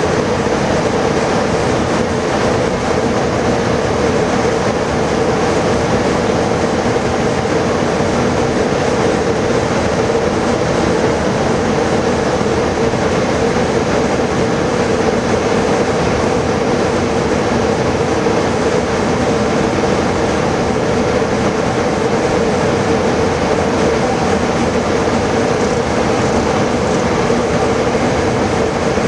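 Steady cabin noise on the flight deck of an Embraer E175 airliner on approach: an even rush of air with a constant drone, unchanging throughout.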